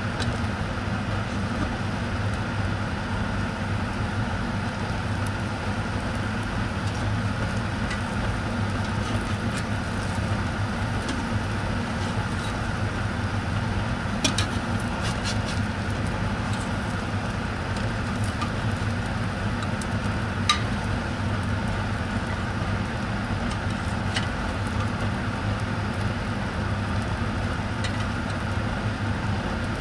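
Egg and cheese sandwich frying in a nonstick pan, a steady sizzle over a constant low hum. A few light clicks of a metal spatula against the pan come about halfway through and again a little later.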